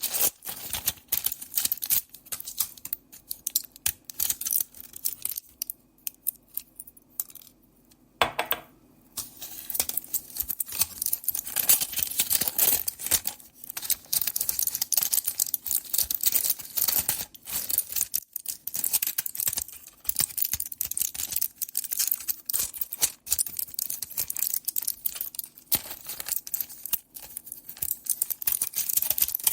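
Pill tablets being handled: a dense run of small hard clicks and rattles with some crinkling, and a short lull about six to eight seconds in.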